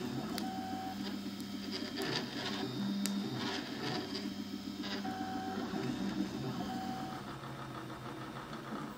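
Prusa i3 3D printer at work, its stepper motors whining in short tones that jump from pitch to pitch as the print head and bed move, with light clicks.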